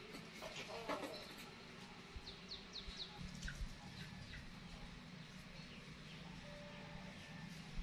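A short squealing call from the playing animals about a second in, then three or four quick high chirps from a small bird a couple of seconds in and a lone chirp after, over faint steady background hum.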